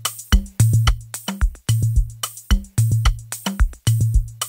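Programmed drum loop playing back in a steady groove: kicks with a low tone ringing under them, rim shots, hi-hats and shakers. It runs through a CLA-76 (1176-style) compressor on the drum bus, whose input is being turned up for light gain reduction.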